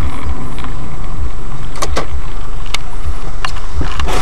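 Loud, distorted engine and road noise of a moving car as picked up by its dashcam microphone, with a low pulsing and a few sharp clicks in the middle.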